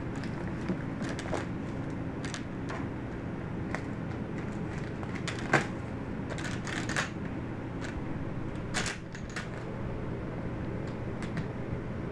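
Small metal latches and hasps on a wooden latches board clicking and clinking as a macaque's hands work them, in irregular single clicks with the sharpest about five and a half seconds in. A steady low hum runs underneath.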